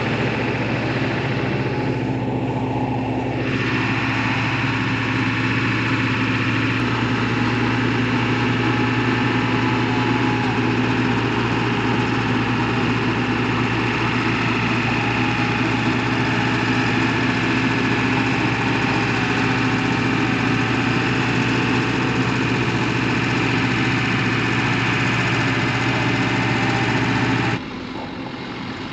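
A vehicle engine idling steadily, a constant low hum with hiss over it, dropping suddenly to a quieter level near the end.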